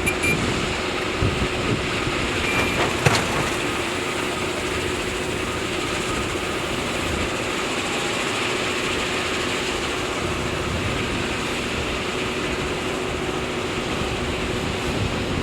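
Diesel engines of heavy earthmoving machinery running steadily at a constant drone, with a single sharp knock about three seconds in.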